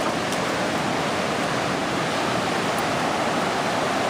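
The Van Duzen River near flood stage: high, fast water rushing in a steady, even wash of noise.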